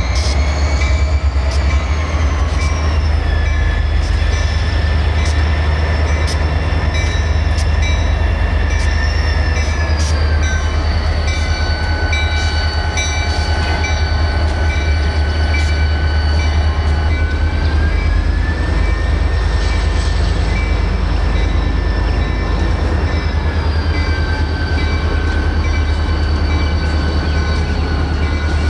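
Diesel freight train passing close by: a heavy, steady low rumble from the locomotives and cars, with a high whine that slowly rises and falls in pitch.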